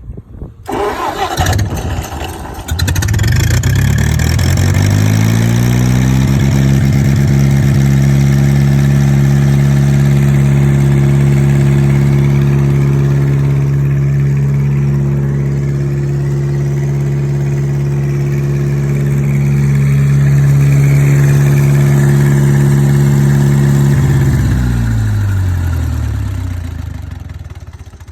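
Hay baler's engine, push-button started on a newly fitted ignition system: it cranks briefly, catches after about two seconds and revs up. It runs steadily for about twenty seconds, then winds down and stops near the end.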